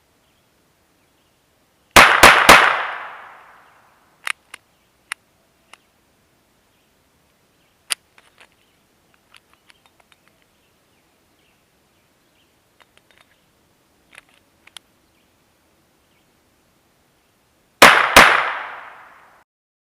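Ruger Mark IV 22/45 Lite .22 LR semi-automatic pistol firing three shots in quick succession about two seconds in, then two more near the end. Each shot has a ringing tail. The rapid follow-up shots show the action cycling the ammunition. Faint small clicks and knocks fall in between.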